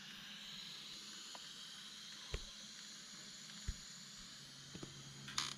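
Camping gas stove burner hissing steadily at low level while coffee is being made, with a few faint clicks.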